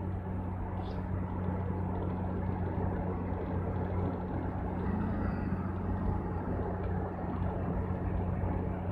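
Steady engine and road drone of a car, heard from inside the cabin.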